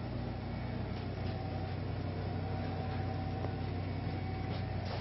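Steady low background hum with a faint high steady tone that grows a little stronger about a second in.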